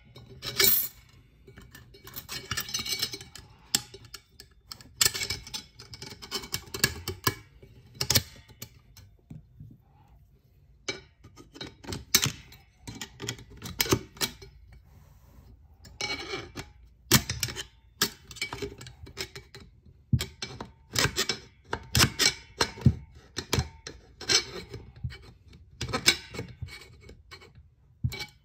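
Irregular metallic clicks, clinks and scrapes as a snap ring is worked by hand into the groove of a 4L60E transmission clutch drum, over the freshly stacked steel and friction plates.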